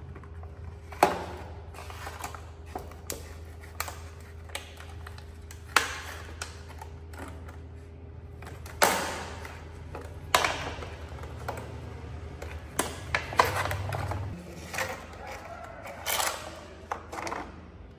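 Yellow plastic fruit basket being pulled and pried open by a monkey on granite steps: irregular clicks and knocks of plastic on stone and of the snapping lid, a few sharper ones among them.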